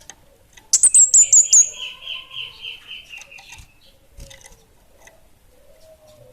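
Small songbird sold as 'kemade bunga api' singing: a quick run of sharp, very high chips about a second in, then a buzzy trill lower in pitch that fades away after a couple of seconds.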